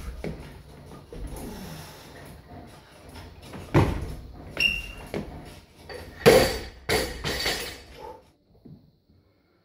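Weightlifter's feet stamp down into the split as a loaded barbell is jerked overhead, a sharp thud about four seconds in. A couple of seconds later the barbell with rubber bumper plates is dropped from overhead onto the floor. It lands with a heavy thud and bounces a few times, the plates clanking, for about two seconds.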